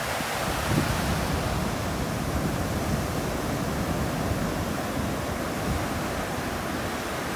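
Steady rushing water in an outdoor nature recording, an even wash of noise without breaks, with a low rumble of wind on the microphone.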